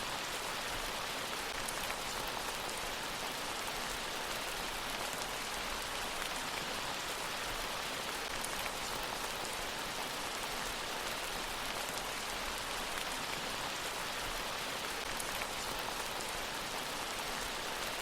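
Steady rain falling on a surface: an even, unbroken hiss with a few sharper drop ticks here and there.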